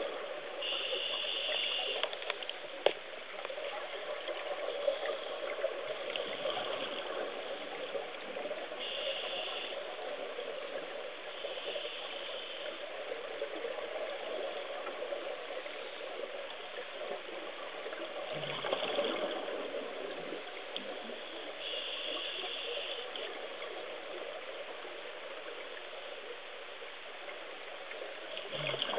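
Underwater recording of a steady rushing water hiss, with short bubbly bursts every few seconds from a scuba diver's regulator exhaling. A sharp click or two about three and five seconds in.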